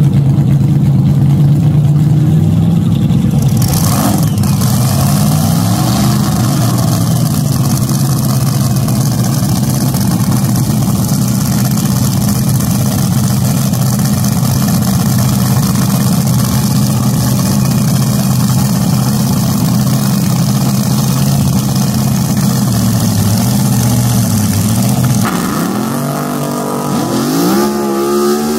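Fuel-injected top alcohol dragster engine idling steadily at high volume, with one throttle blip about six seconds in. Near the end the idle drops away and the engine revs up in rising sweeps as the car does its burnout.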